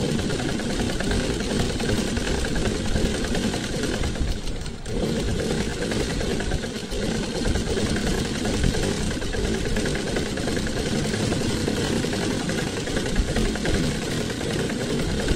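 Sewing machine running steadily, its needle stitching through fabric, with a brief slowdown about five seconds in.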